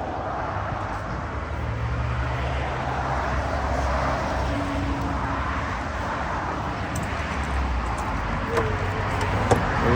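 Road traffic going by: a passing vehicle's engine and tyre noise swells over the first few seconds and slowly fades.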